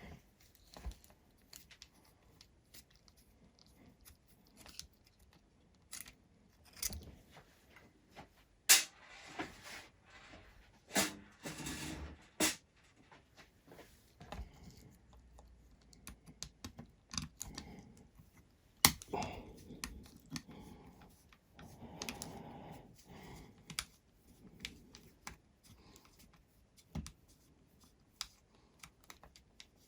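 Scattered clicks, taps and rustling of small tools and parts being handled while taking apart a hexacopter arm, with sharp knocks about nine seconds in and again near nineteen seconds.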